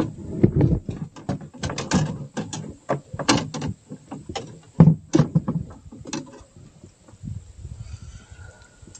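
Irregular knocks and clatters of hard objects being handled, coming thick and fast at first and thinning out after about six seconds.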